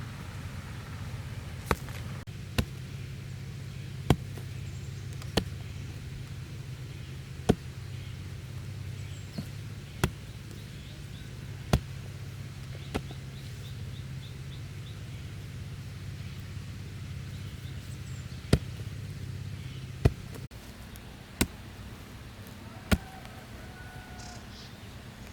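A series of sharp single knocks, one every one to three seconds, about fourteen in all, over a steady low hum.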